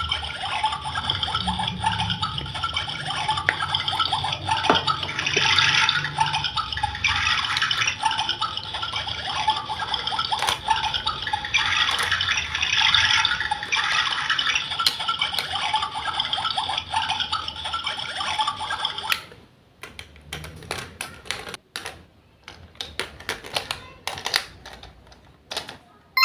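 Water running in a steady stream, as from a small tap into a sink, which stops about 19 seconds in. Light scattered clicks and taps follow.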